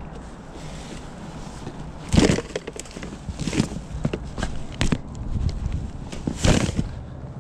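Knocks and clatter of household items being moved and handled while a storage unit's contents are sorted. There is a loud thump about two seconds in, a run of smaller knocks and clicks after it, and another loud thump near the end.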